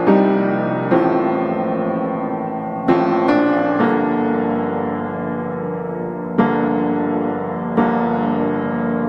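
Slow, gentle piano music: chords struck every one to three seconds, each left to ring out and fade before the next.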